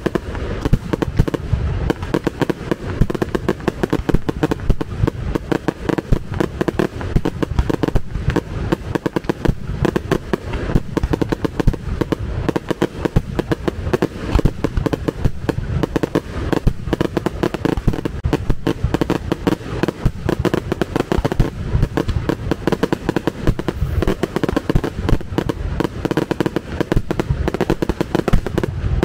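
Fireworks exploding in a dense, continuous barrage of loud bangs, one on top of another with no pause.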